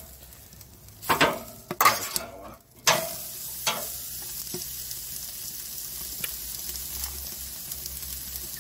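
Ribeye steak sizzling on the steel grate of a barrel smoker over an open fire. A few sharp metal scrapes and clanks in the first four seconds as a metal spatula shifts the steak across the grate, then a steady sizzle.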